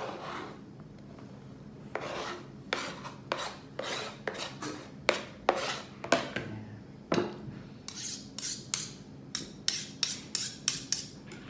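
A kitchen knife scraping finely chopped onion off a cutting board into a glass dish in a series of scraping strokes. From about eight seconds in, a fork stirs the onion into flaked tuna, clicking quickly against the glass.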